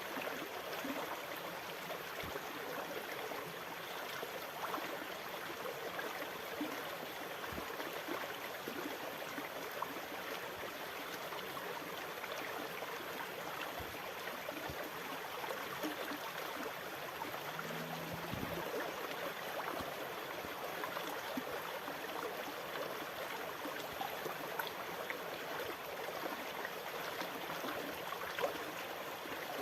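Sea water washing and lapping, a steady even rush of water noise with no distinct wave surges.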